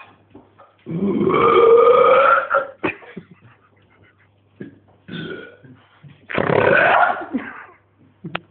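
A man belching loudly on purpose. A long burp of about a second and a half comes a second in, then a short fainter one, then a second loud burp of about a second.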